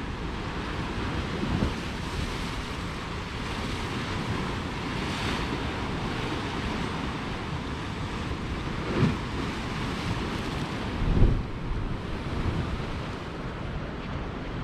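Waves breaking and washing over a rocky shoreline in a steady surf noise, with wind buffeting the microphone in a few low gusts, the strongest about three-quarters of the way through.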